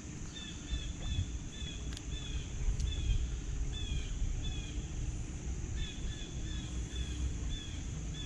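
A bird calling in runs of short, falling chirps, two or three a second, with a lull in the middle, over a steady low rumble.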